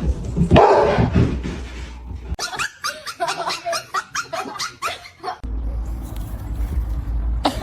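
A dog barking in a fast run of short barks, about four or five a second, for roughly three seconds, then stopping suddenly as a low rumbling noise takes over.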